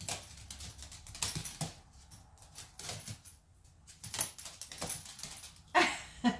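Small Yorkie-Pomeranian dog playing on a hard floor: irregular light clicks and taps of its claws, with faint metallic jingling from its collar and the rustle of the paper towel it is tugging.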